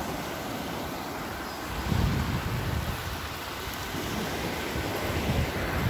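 Small surf waves washing up on a sandy beach, with wind rumbling on the phone's microphone, loudest about two seconds in.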